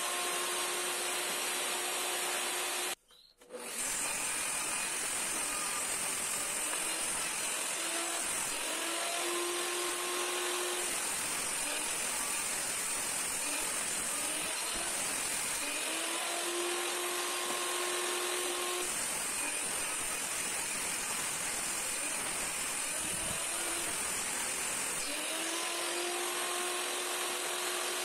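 Benchtop table saw running and ripping wooden boards. A steady motor whine alternates with longer stretches of cutting noise as boards are fed through the blade, and the sound drops out briefly about three seconds in.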